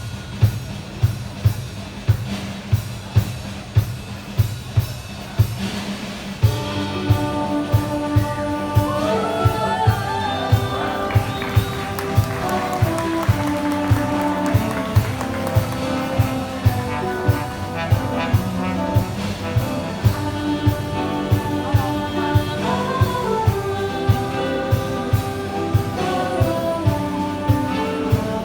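Big band playing jazz: the drum kit keeps a steady beat, and about six seconds in the brass section comes in with held chords and a melody line over it.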